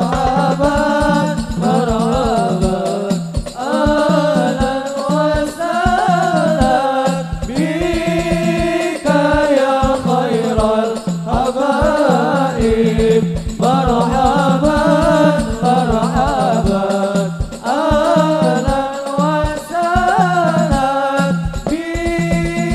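Sholawat sung as a devotional qasidah, the sung melody wavering over fast, steady strokes of hadroh frame drums (rebana).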